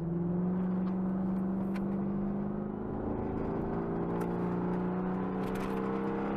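Car engine heard from inside the cabin, pulling under steady acceleration, its pitch rising slowly throughout.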